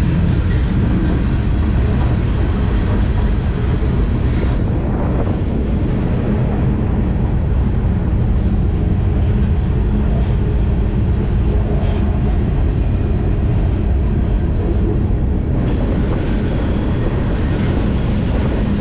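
Freight car rolling at speed, heard from a rider on board: a loud, steady rumble and rattle of wheels on rail, with an occasional sharp click.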